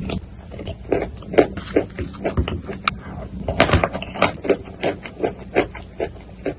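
Close-up chewing of wet chalk in clay paste, with a metal spoon against a ceramic mug: many short, wet clicking mouth sounds, several a second.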